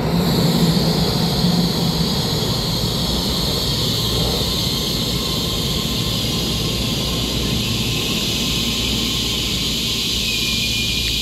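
Taiwan Railway EMU3000 electric train pulling in along the platform: a steady high whine over wheel and rolling noise. Near the end there is a short falling tone as it slows.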